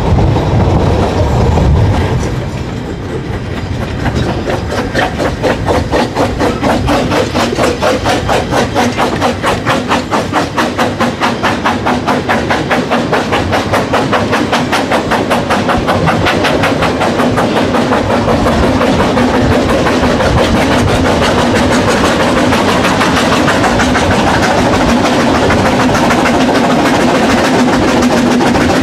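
Narrow-gauge steam train running, heard from an open carriage window: a rapid, even beat that grows less distinct in the second half as the train draws into a station, while a steady low hum comes in.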